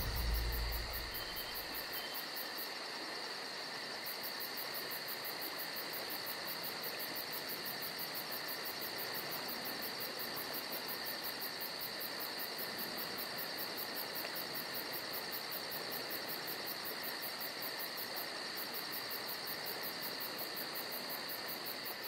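Steady insect chorus: a continuous high trill with fast, even pulsing above it.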